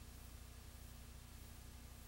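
Near silence: a blank audio track holding only a faint, steady low hum and hiss.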